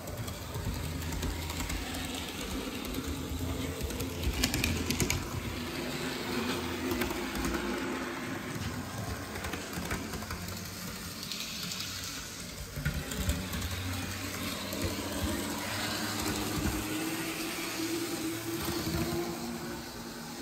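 Athearn PA-1 HO-scale model diesel locomotive running along the track on DC power: the small electric motor and gears whine with a pitch that wavers up and down over a low rumble of the wheels on the rails, with a brief clatter about four seconds in.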